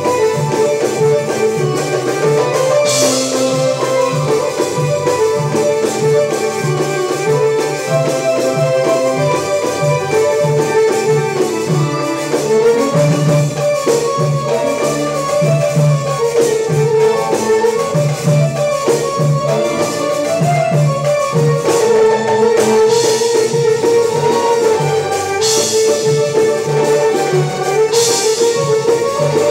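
Live Arabic baladi music from a small band: keyboards carry the melody over a pulsing electric bass line, with darbuka goblet-drum rhythm. A few brief bright swells in the highs come about three seconds in and three times near the end.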